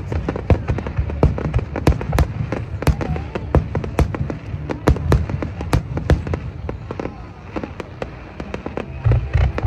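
Fireworks display: aerial shells bursting in quick succession, a dense run of sharp bangs over a low rumble, the bangs thinning out about two-thirds of the way through.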